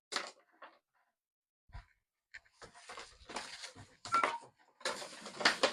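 Electrical cable being handled: a short click just after the start, then a run of rustling and scraping from about two and a half seconds on.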